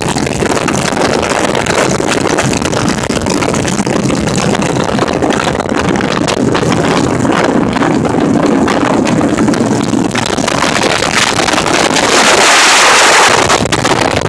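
Motorcycles riding at highway speed: engine running under heavy wind buffeting on the microphone, with a louder rush of wind about twelve seconds in.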